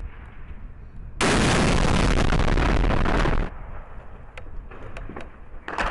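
Gunfire in street fighting: a loud, sustained burst of rapid fire for about two seconds that stops abruptly, then scattered single shots, and another burst of fire just before the end.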